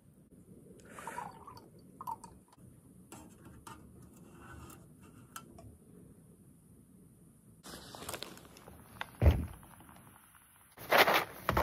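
Quiet handling noises and light taps, then a single thump about nine seconds in, then a foil freeze-dried meal pouch crinkling loudly near the end.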